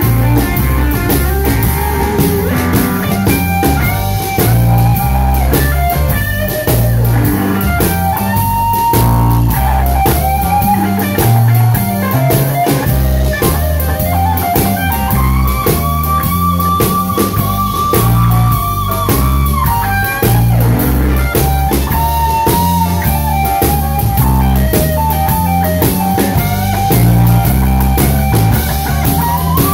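A live blues band: an electric guitar plays a solo of bent and held notes, the longest held for several seconds near the middle, over a drum kit keeping a steady beat.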